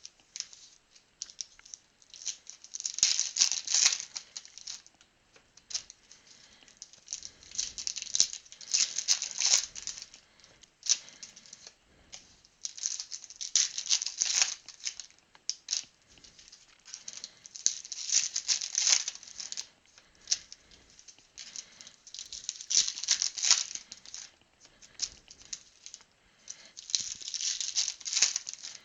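Trading cards being shuffled by hand: a dry, rattling shuffle in bursts of one to two seconds, repeated about every four to five seconds.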